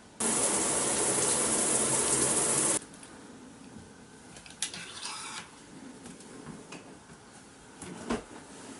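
Water running hard, starting abruptly and cutting off just as abruptly after about two and a half seconds. A brief rattle follows about halfway through, clothes hangers sliding on a closet rail, then a single soft knock near the end.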